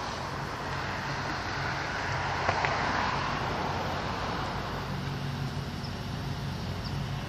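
Low, steady diesel engine hum from the locomotive of an approaching Amtrak Capitol Corridor train. Under it runs road traffic noise that swells briefly about two to three seconds in.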